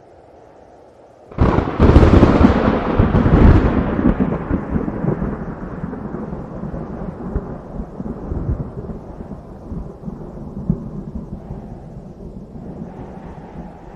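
A thunderclap breaks in suddenly about a second in with a sharp crack, then rolls off into a long low rumble that fades slowly over the next ten seconds, swelling slightly again near the end.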